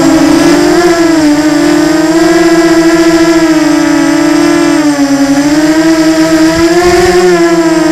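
Small FPV quadcopter's brushless motors and propellers whining loudly up close, heard from the drone's own onboard camera. The whine wavers up and down in pitch, dipping lowest about five seconds in.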